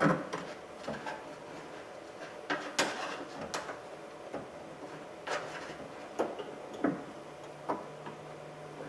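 Scattered light clicks and knocks of a metal door lock rod and a hand against the latch and inner sheet metal of a car door, as the rod is worked around by feel to find its hole in the latch mechanism.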